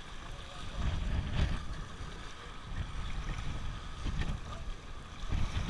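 Wind buffeting the camera's microphone in uneven gusts, with small waves washing against jetty rocks.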